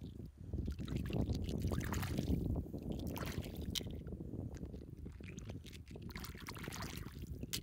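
Hands squelching and sloshing through wet tidal mud, with a few sharp clicks as a handful of shells knock together, over a low rumble on the microphone.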